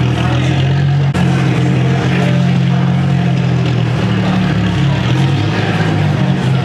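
Car engines running with a steady low drone. It shifts abruptly a little over a second in.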